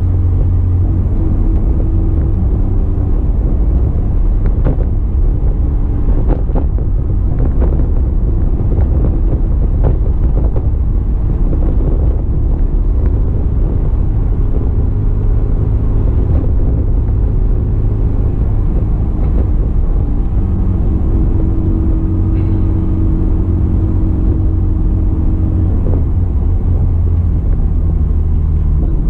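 A 2007 Honda S2000's four-cylinder engine and road rumble heard from inside the cabin while driving: a steady low drone whose engine note shifts in pitch now and then as the revs change, with a few light knocks.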